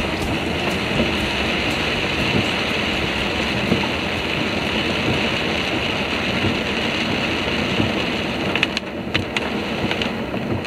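Steady road noise of a car driving on wet pavement in rain, heard from inside the car: tyres on the wet road and rain, with a few sharp clicks near the end.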